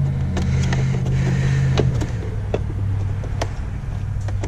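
Light plastic clicks and taps as an instrument cluster's circuit board and housing are handled and fitted together. Under them is a steady low hum that drops a little in pitch about two seconds in.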